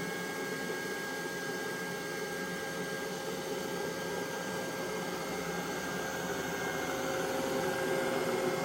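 Neato Botvac D Series robot vacuum running: a steady whirring of its suction fan and brush motor with a thin, steady whine over it, growing slightly louder near the end.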